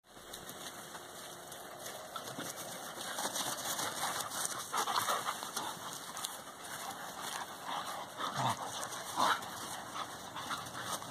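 Collie puppies and their mother play-fighting, with short dog sounds at intervals over a noisy background; the loudest comes about nine seconds in.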